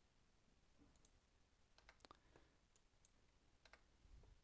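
Near silence with a few faint computer mouse clicks, two of them close together about two seconds in.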